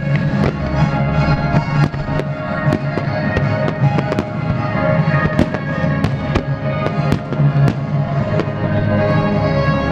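Aerial fireworks shells bursting in a rapid series of sharp bangs, about two a second, over loud music with sustained tones.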